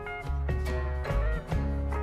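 Background music with a steady drum beat, bass and melodic notes.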